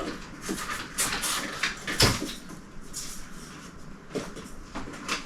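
Handling noises from unpacking a new 3D printer: rustling and clicking of packing pieces and plastic parts being pulled off, with a sharp knock about two seconds in.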